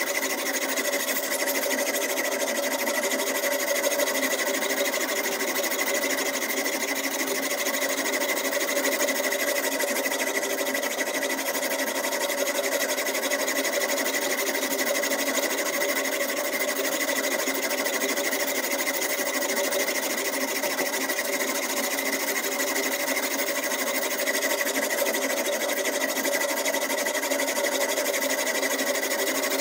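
Diamond whetstone on a guided-rod knife sharpener scraping rapidly back and forth along a steel steak knife's edge, a continuous, steady rasping with a few held tones underneath.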